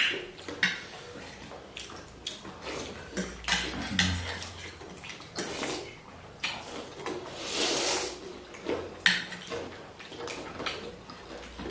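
Eating sounds from bowls of chicken thukpa noodle soup: noodles and broth slurped in several hissing bursts, the longest about two thirds of the way in, with utensils clicking against the bowls.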